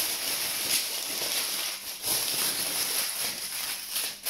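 Aluminium foil crinkling as it is folded and pressed by hand around a loaf, with uneven louder crackles.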